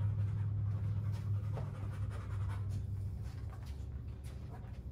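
A black Labrador retriever panting as she walks at heel, with scattered footsteps and taps on the floor, over a steady low hum.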